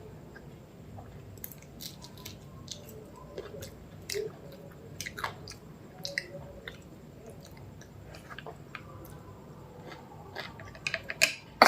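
A person chewing a mouthful of mutton biryani, with irregular short mouth clicks and smacks throughout. A cluster of sharper, louder clicks comes near the end.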